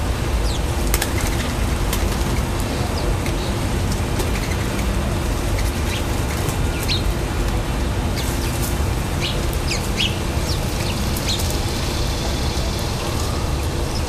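A dove's wings flapping at a seed feeder, with short high chirps from small birds now and then, over a steady low rumble.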